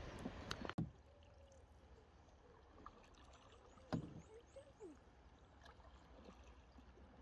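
Canoe being paddled on calm water: faint paddle strokes and water around the hull, with one sharp knock about four seconds in.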